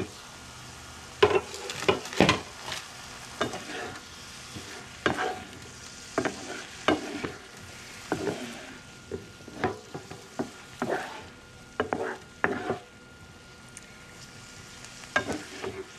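Stir-fry sizzling steadily in a nonstick frying pan while a spoon scrapes and knocks through the vegetables and vegan meat pieces, in uneven strokes about once a second that pause near the end.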